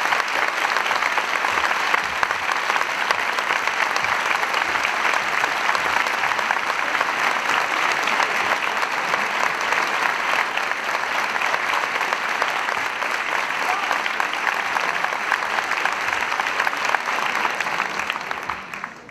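Large concert audience applauding steadily, the clapping fading away in the last second.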